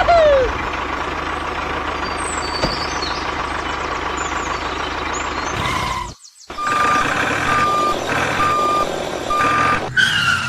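Truck running with a steady whine for about six seconds. After an abrupt cut, a truck's reversing alarm beeps four times over engine noise.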